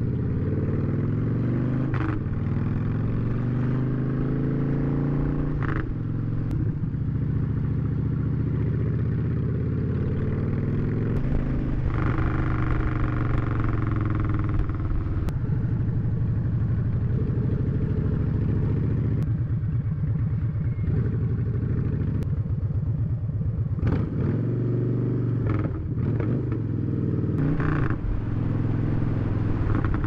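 Motorcycle engine running under way, its pitch rising and falling with the throttle, with a few brief knocks along the way.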